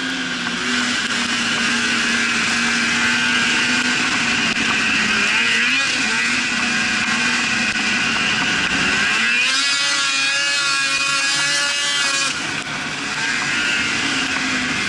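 Snowmobile engine running steadily under throttle while riding over snow. About ten seconds in, the engine note shifts for about three seconds, rising and then easing back, before settling into its steady run again.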